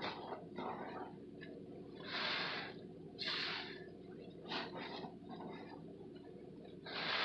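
Soapy sponges soaked in Pine-Sol cleaner being squeezed: a series of wet, foamy squishes, each about half a second long, the biggest about two, three and a half and seven seconds in, with smaller squeezes between.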